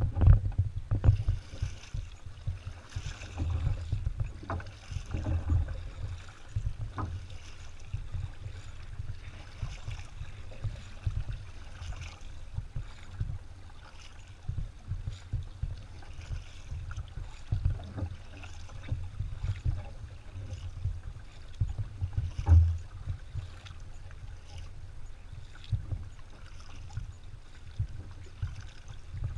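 Kayak being paddled: a double-bladed paddle dipping and pulling through calm water, with a low, uneven rumble from the plastic hull and scattered small clicks and knocks. One louder knock comes about three-quarters of the way through.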